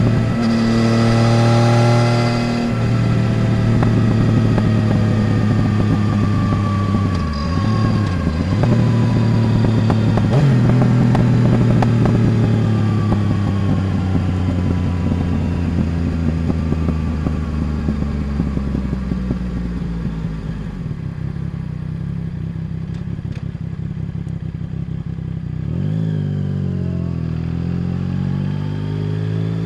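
Yamaha Tracer 900 GT's three-cylinder engine through a Roads Italia full exhaust, heard from under the passenger seat. It runs at steady revs, then its pitch falls slowly for many seconds as the bike slows, with a couple of brief dips. It settles lower and quieter, then revs rise again near the end.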